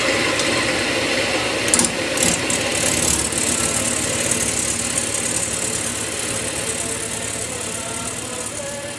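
Wood lathe running steadily with the bowl spinning, with a few sharp clicks about two seconds in.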